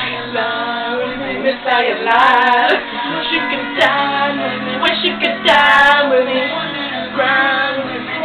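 Pop music with a woman singing along into a handheld microphone.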